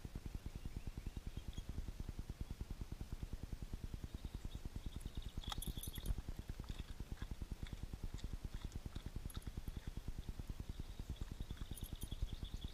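Dog panting fast and steadily close to the microphone. A few short crunches come about six seconds in and again near the end as it eats crackers.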